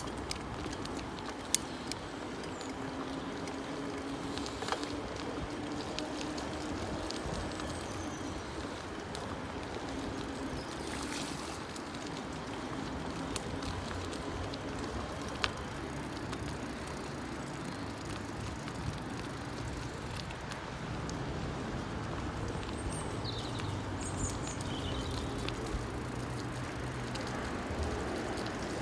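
Bicycle rolling along a wet path: steady tyre noise on the damp surface, with a few sharp clicks from bumps along the way.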